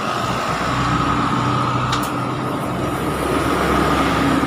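Steady drone of an engine running, with one sharp click about two seconds in.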